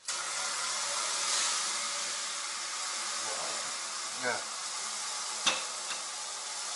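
Kitchen tap turned on, its stream of water pouring and splashing steadily into a stainless steel container in a stainless steel sink. A single sharp click comes about five and a half seconds in.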